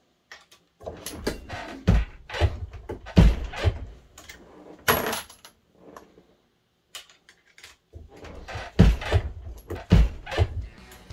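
Brass 6.5 Creedmoor rifle cases clinking and clattering as they are handled: a string of sharp metallic clicks and clinks, some ringing briefly, with a sparser stretch a little past the middle.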